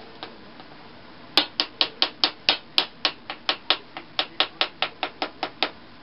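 A quick, even run of about twenty sharp light taps, roughly five a second. It starts a little over a second in and stops near the end.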